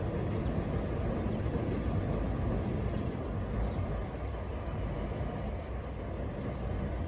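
Distant Joetsu Shinkansen bullet train running along an elevated viaduct as it slows to stop at a station, heard as a steady low rumble that eases off slightly about four seconds in.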